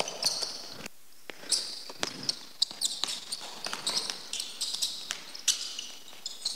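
Basketball being dribbled on a hardwood court, a string of irregular bounces, with short high squeaks of sneakers on the floor as the defender presses the ball handler.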